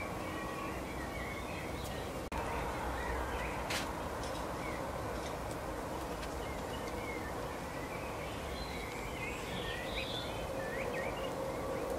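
Small songbirds, goldfinches at a seed feeder, twittering in short high chirps, which are busier near the end. They sit over a steady background hiss with a faint hum, and there is a sharp click about four seconds in.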